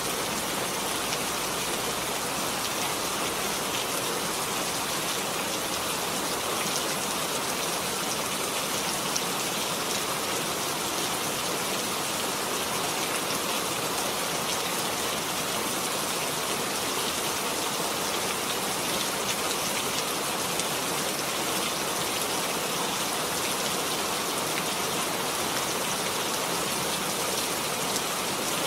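Steady rain falling: an even hiss with fine, scattered drop ticks.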